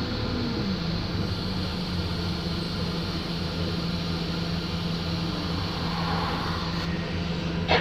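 Wright StreetLite single-deck bus running, a steady engine drone with a constant low hum; the engine note falls about half a second in, then holds level.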